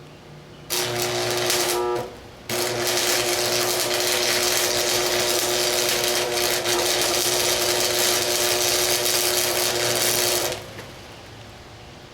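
Stick welder arc crackling and hissing over a steady electrical hum as a bead is run to fill a gap: a short burst, a half-second stop, then about eight seconds of steady welding that stops abruptly.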